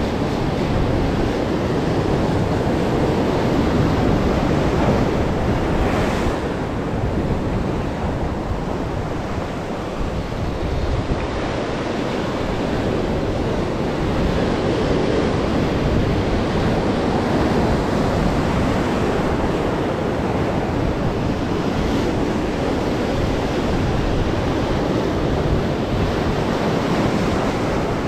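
Rough sea surf breaking and washing over shoreline rocks, a loud, steady rush, with wind buffeting the microphone.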